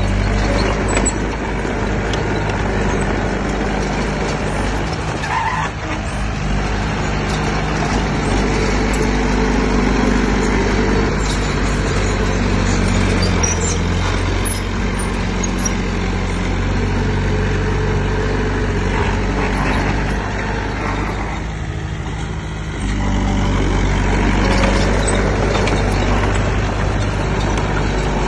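Heavy diesel engine of earthmoving machinery running steadily under load. It eases off about 21 seconds in and comes back louder about two seconds later.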